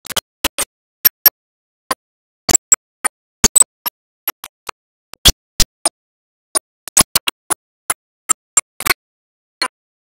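Irregular sharp clicks and taps, often in pairs, from fingers handling and tapping a Xiaomi smartphone's plastic body and screen, with dead silence between them.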